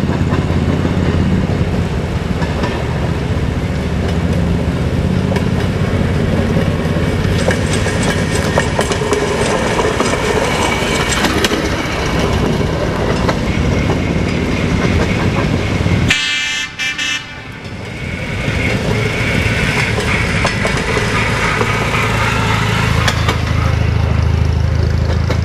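California Western Skunk Train passing close by: a steady engine hum, then wheel clatter on the rails that builds as the cars go past. The hum returns near the end.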